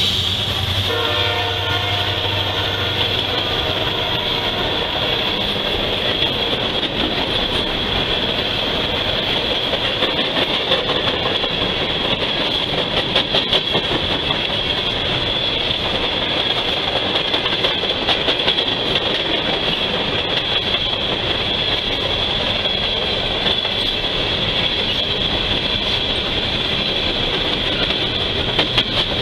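Empty CSX coal hopper cars rolling past close by: a steady rumble and rattle, with the wheels clicking over the rail joints and a steady high-pitched whine over it all.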